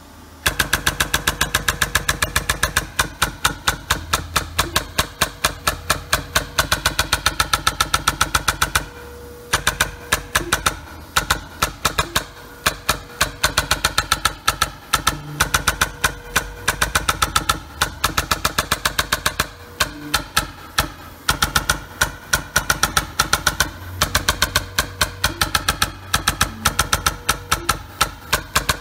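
Technifor Impact EZ pneumatic dot peen marker, its stylus hammering a rapid train of sharp taps into a cylindrical part as it marks a Data Matrix code. The tapping starts about half a second in and stops briefly twice as the stylus moves on.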